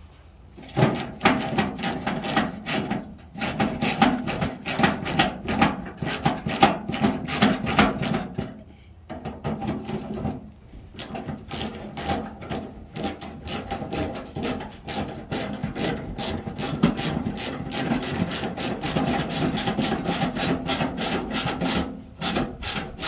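Hand ratchet clicking fast as the 10 mm screws of a tailgate handle are driven back in. The clicks come in long runs, several a second, broken by a few short pauses.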